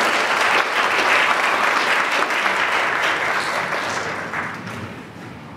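Audience applauding: steady clapping that begins to die away about three and a half seconds in.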